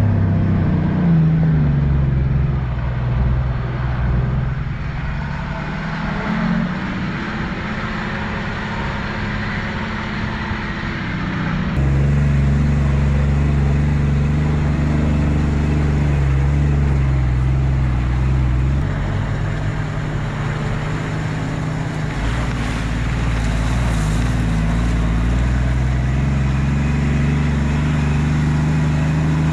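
4x4 vehicle engine running while driving, its pitch moving up and down with the revs, with an abrupt change in the sound about twelve seconds in.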